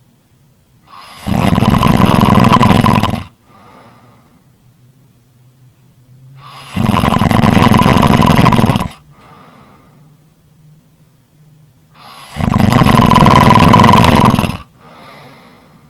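Loud snoring: three long snores of about two seconds each, some five and a half seconds apart, with quieter breaths in between.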